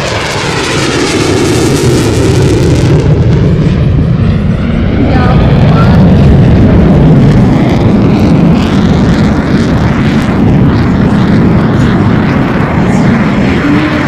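Single Klimov RD-93 turbofan of a JF-17 Thunder fighter running loud in a display flypast, with a sweeping tone that dips and rises as the jet passes.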